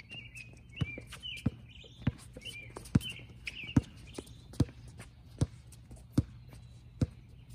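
A basketball being dribbled on a hard outdoor court, bouncing in a steady rhythm about once every 0.8 seconds. Short high chirps come and go over it in the first half.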